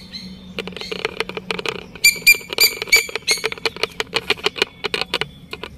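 Birds calling: squeaky, squawking notes, with a cluster of loud calls about two to three seconds in, over a run of rapid chattering clicks.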